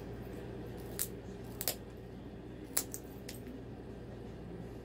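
Cockatoo chewing on a hanging toy of metal chain and wooden blocks: a handful of sharp clinks and clicks from the chain and the beak on the toy, over a steady low hum.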